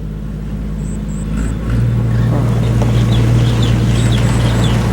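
Rice combine harvester's engine running, taking on load and growing louder with a deep steady hum about a second and a half in, as it starts dumping its grain. Birds chirp over it.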